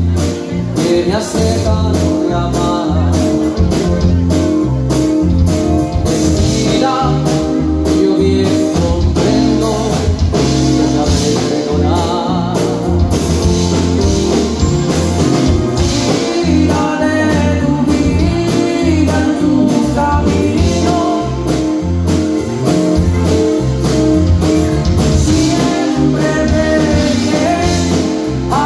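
Band music with singing, guitar, bass line and drum kit, playing steadily and loudly.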